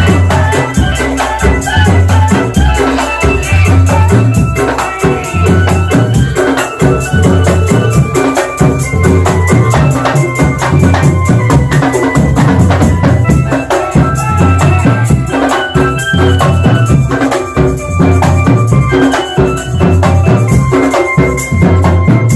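Loud drum band music: a steady, repeating bass-drum beat under rattling percussion, with a melody carried on top.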